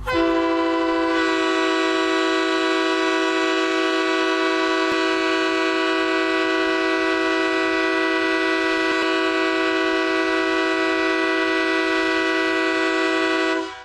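Hockey arena goal horn: one long, steady blast of several tones sounding together, lasting about fourteen seconds and cutting off suddenly near the end.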